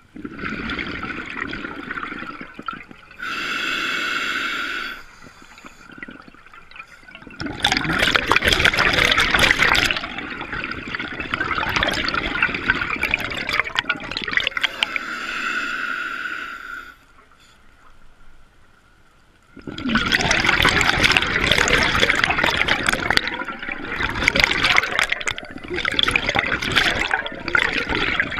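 Scuba regulator breathing underwater: two full breaths, each a hissing inhalation with a faint whistling tone followed by a long, loud rush of bubbling exhaust.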